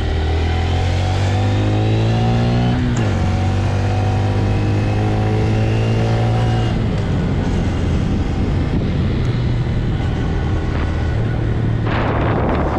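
Stock 2025 Honda Grom's single-cylinder engine pulling through a gear, its pitch rising for about three seconds, dropping sharply at an upshift, then holding steady before the throttle eases off partway through. A brief rush of noise comes near the end.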